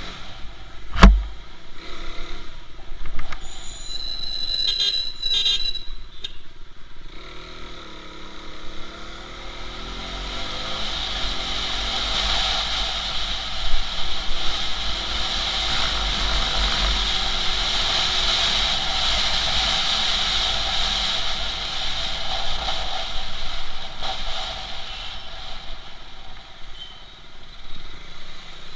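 Motorcycle engine pulling away and revving up through the gears, with wind and wet-tyre noise building as the bike gathers speed. A single sharp thump sounds about a second in.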